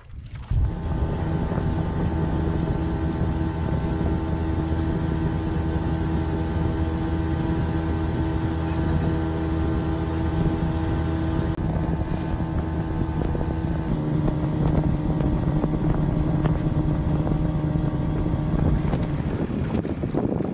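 Outboard motor on a small aluminium boat running at a steady cruising speed, one even engine tone that holds throughout.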